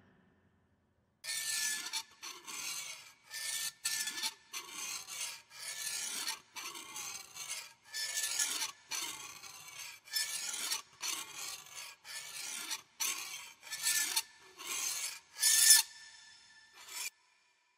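A horror sound effect of repeated rasping strokes, like something being filed or scraped, a little more than one stroke a second with a faint metallic ring. The strokes start about a second in and stop shortly before the end, and one of the last is the loudest.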